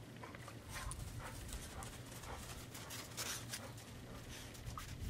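A dog panting, with soft irregular steps of paws in snow.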